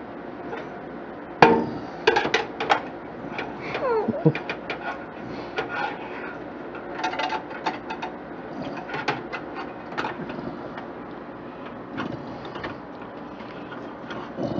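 Irregular clicks, knocks and scrapes of hard computer parts being worked by hand while a heatsink is being fitted, with a sharp knock about a second and a half in and a brief falling squeak around four seconds.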